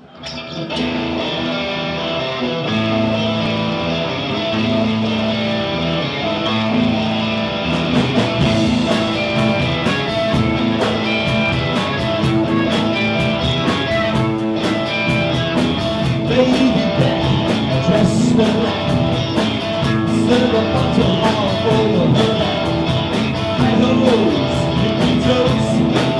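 A rock band playing live: an electric guitar riff opens, drums and cymbals join about eight seconds in, and a harmonica is played through the vocal microphone with bending notes over the band.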